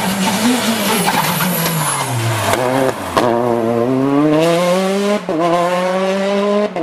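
Skoda Fabia R5 rally car on a loose, dusty stage road. Its engine revs fall as it slows for a bend, then climb as it accelerates away, with quick gear changes about three and five seconds in and again near the end. There is a hiss from the tyres on the loose surface.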